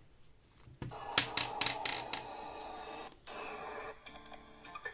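A vlog's audio playing through a flip phone's small speaker. It starts about a second in with a quick run of sharp clicks over a steady bed of sound, breaks off briefly, then goes on with lighter ticks.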